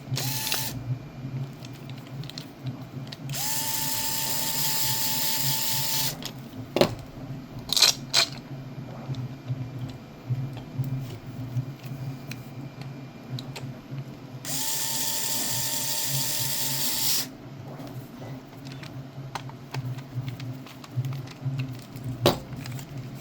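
Power drill running in two steady bursts of about three seconds each, with a brief spin just after the start. A few sharp clicks and knocks from handling come between the bursts.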